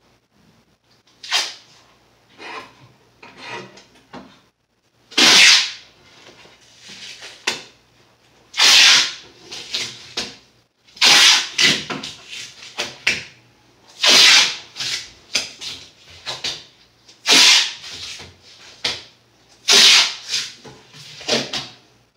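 Masking tape being pulled off the roll in strip after strip, each pull a short rasping rip, every couple of seconds, with quieter rubbing as it is pressed along wooden cabinet face frames.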